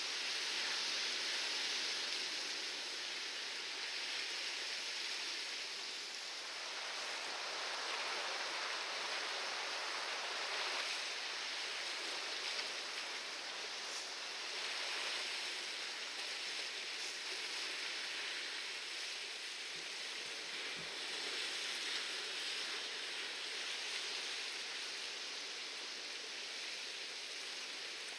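Sea washing against a rocky shore: a steady rushing hiss of water that swells and eases every few seconds.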